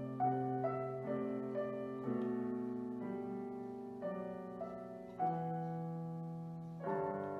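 Digital piano played slowly and gently: held chords with a simple melody on top, new notes struck every half second to two seconds, each fading slowly before the next.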